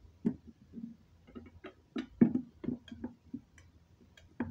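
Irregular clicks and knocks of hands working a fire alarm system while resetting it after an alarm.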